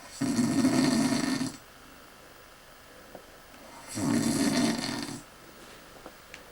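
A person snoring: two loud snores about four seconds apart, each lasting just over a second, at a steady, even pace.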